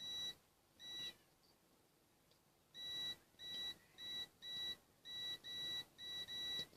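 Multimeter continuity-test beeper giving short, irregular high beeps: two near the start, a pause, then a broken run of about nine. The beep cuts in and out as the test leads make and lose contact in the breadboard's loose spring contacts.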